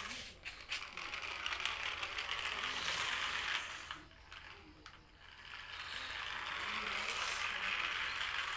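Toy remote-control JCB backhoe's small electric motor and plastic gearbox whirring as it drives. The whir stops for about a second and a half around the middle, then runs again.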